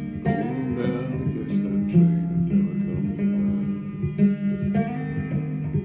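Banjo picking a slow old-time melody, plucked notes ringing over a steady low note.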